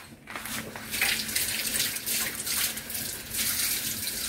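A kitchen tap running, water splashing into the sink in a steady hiss that starts just after the beginning.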